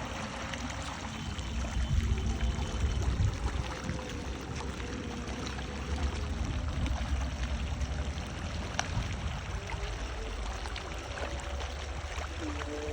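Water running and splashing in a steady stream, over a low rumble.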